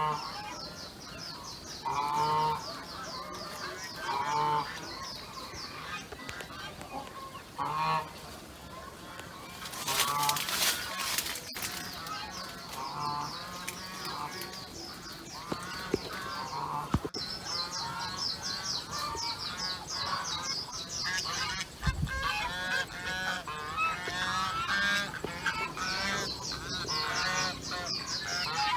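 Farm animals calling over and over, with a fast, high chirring chorus behind them. A brief noisy clatter comes about ten seconds in.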